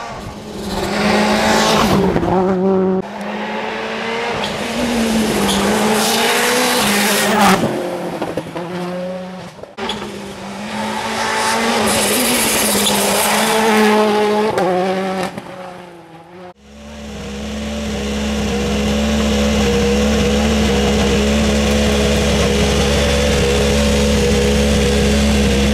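Citroën World Rally Car's 1.6-litre turbocharged four-cylinder engine at full throttle on a tarmac stage, revs climbing and dropping with each gear change as the car passes by again and again. About two-thirds through, the sound gives way suddenly to a steady, low idling drone.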